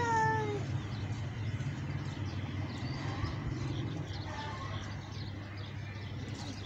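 Outdoor background: a steady low rumble with faint scattered bird chirps. At the very start, a long drawn-out human call trails off, falling in pitch.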